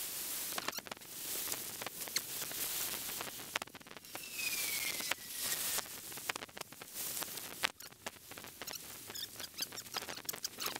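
Footsteps crunching and clicking on stones and gravel while crossing a shallow rocky creek, irregular and close, with the creek's rippling water behind them. A thin falling whistle sounds about four seconds in.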